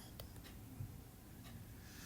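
Quiet room tone with a faint click shortly after the start.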